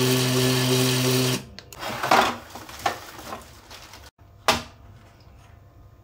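Hoverboard hub motor (brushless DC) running on a ZS-X11H controller with a loud, steady hum and hiss, then stopping abruptly about a second and a half in. A few light clicks follow. The loud running is the sign of improperly connected Hall sensor cables.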